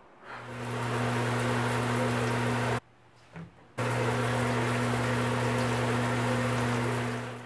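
Shower running: a steady rush of water with a low hum under it. It cuts out for about a second near the middle, then resumes.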